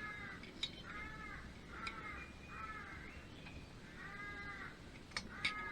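A crow cawing repeatedly, about six short caws, with a few sharp light clicks in between.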